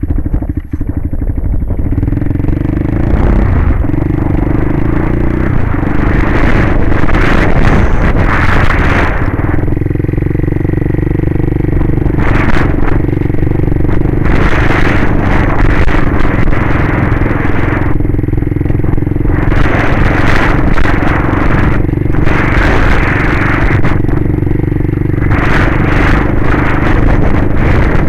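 Kawasaki Bayou 220 ATV's single-cylinder four-stroke engine running steadily as it drives across grass. Wind rushes over the microphone in repeated gusts on top of it.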